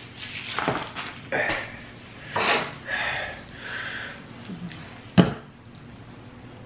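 Sniffing and breathy exhales from runny noses and burning mouths after very spicy chicken wings, in several short bursts, then a single sharp knock about five seconds in.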